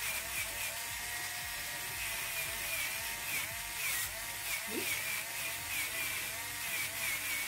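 Electric nail drill running, its whine wavering up and down several times a second as the bit is worked over an acrylic nail tip, filing it down to blend the edge.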